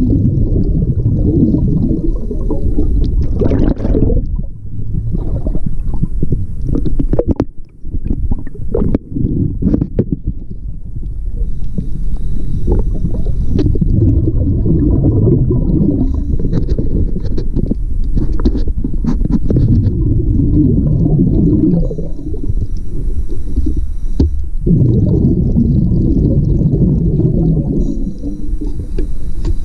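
A scuba diver's regulator heard underwater: exhaled air bubbling out in long, loud bursts, alternating with quieter pauses between breaths. A few sharp clicks come about eight to ten seconds in.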